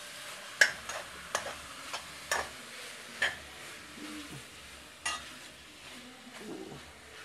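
Spoon stirring seasoned chicken in an aluminium pot on a gas stove, with about seven sharp knocks of the spoon against the pot in the first five seconds. A faint steady sizzle of the chicken frying in oil as it is curried runs underneath.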